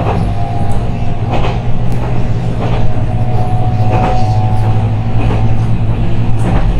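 Running sound heard inside a JR Kyushu 813 series electric multiple-unit car: a steady low rumble, with a sharp wheel click over the rail joints about every 1.3 seconds.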